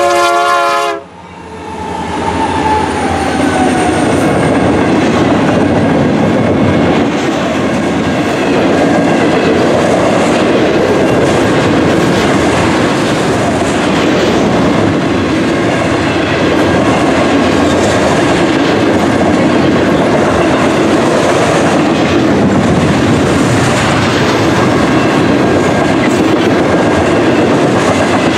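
A freight locomotive's horn chord cuts off about a second in. After it, the diesel locomotives pass, then a long double-stack intermodal freight train's cars roll steadily by on the rails with a constant rumble and clatter of wheels over the joints.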